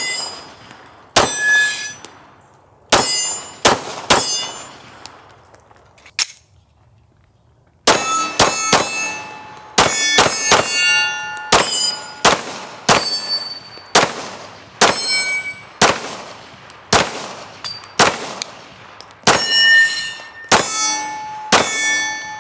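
9mm Glock 17 Gen 1 (P80 replica) pistol fired in a string of shots, with steel targets ringing as the hits land. A few seconds of pause about four seconds in, then a fast run of shots and rings from about eight seconds in.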